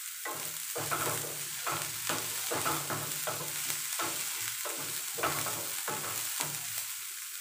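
Wooden spatula stirring and scraping chopped onions, garlic and chillies around a non-stick frying pan, about two or three strokes a second, over a steady sizzle of frying in oil. The strokes ease off near the end.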